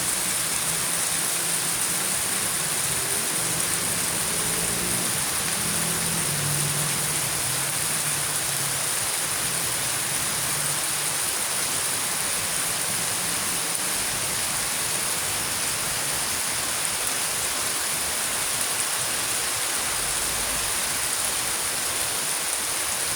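Steady heavy rain: an even, unbroken hiss of falling water.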